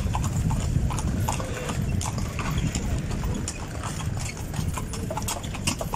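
Horse's hooves clip-clopping on a paved street as it pulls a horse-drawn carriage (calèche), with a steady low rumble underneath.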